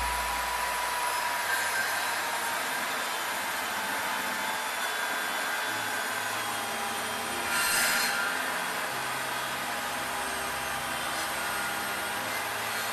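Interskol DP-165/1300 circular saw running steadily under load as it cuts a 45° bevel through a thick dry pine board, with a louder surge about eight seconds in.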